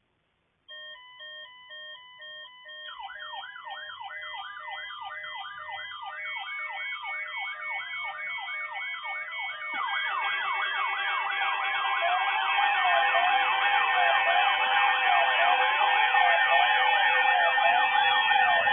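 Several electronic alarm tones sounding together, siren-like. Pulsed beeps at several pitches begin a moment in. Repeating rising-and-falling wails join about three seconds in, and more overlapping alarm patterns come in partway through, growing louder toward the end.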